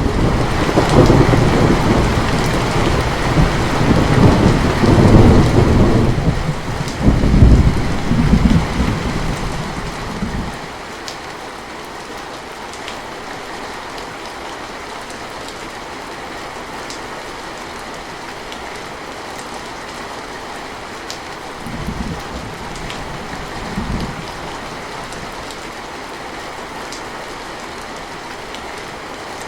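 Thunder rolling over steady rain: a loud rumble that sets in at the start and dies away about ten seconds in, leaving the even hiss of rain, with two short, softer rumbles of thunder near the end.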